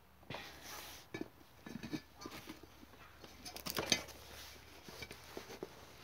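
Metal wheelbarrow rim and rubber tyre being handled on cardboard: scattered light knocks, clinks and rubbing as the rim is set into the tyre. The loudest knock comes about four seconds in.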